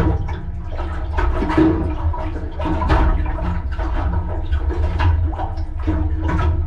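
Seawater sloshing and gurgling inside a small aluminium boat's anchor well, over a steady low rumble.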